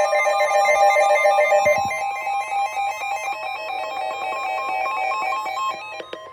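Electronic emergency alert tones from a weather radio: a steady tone near one kilohertz under a fast, stepping multi-tone beeping pattern like a ringtone. The beeping stops about six seconds in, leaving the steady tone.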